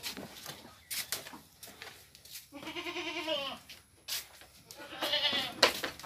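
Boer goats bleating twice: a wavering bleat about midway and a shorter one near the end. Sharp clicks and knocks are scattered around them, the loudest a single knock near the end.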